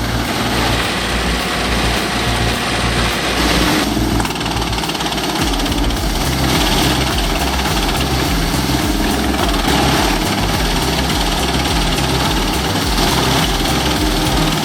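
Engine-driven wood chipper running steadily. About four seconds in, the sound cuts to a wood crusher working, with a steady engine throb under dense machine noise.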